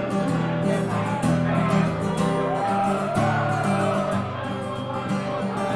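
Instrumental introduction to a folk-style song: strummed acoustic guitar chords with a melody line played over them.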